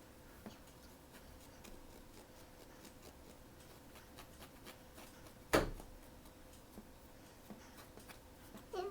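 Quiet handling of blind-box packaging and toys: soft scattered clicks and rubbing over a faint steady hum, one sharp knock about halfway through, and a short wavering squeak near the end.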